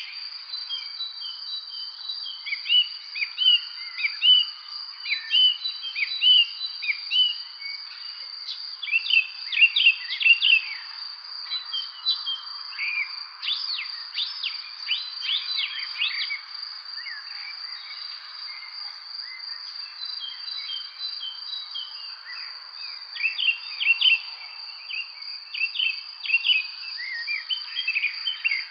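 Spring evening bird chorus: several songbirds chirping and twittering in bursts, thinning out for a few seconds past the middle, over a steady high-pitched trill.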